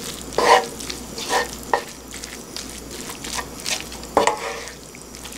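Spicy chicken-galbi fried rice sizzling in a nonstick pan over the heat, as two wooden spatulas stir and toss it, with a few sharp scrapes and knocks of the spatulas against the pan about half a second and four seconds in.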